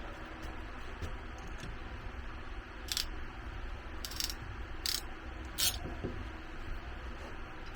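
Four short, sharp clicks from hand work on water-line fittings and clamps, between about three and six seconds in, the second slightly longer, over a steady low hum.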